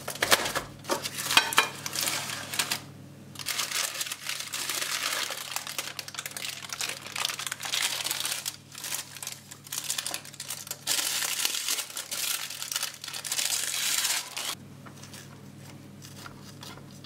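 Baking parchment paper crinkling and rustling in bursts as it is handled and pulled from under a baked pie. It stops a few seconds before the end, leaving a low steady hum.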